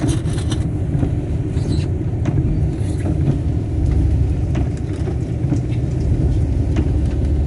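Steady low rumble of a car heard from inside the cabin, with a few faint scattered clicks.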